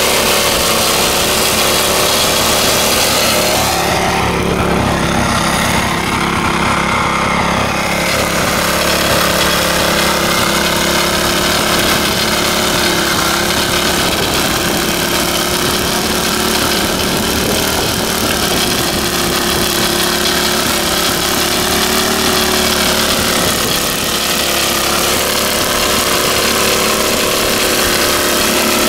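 Troy-Bilt Horse rear-tine tiller running steadily under load, its small single-cylinder engine working as the tines churn through hard, dry soil.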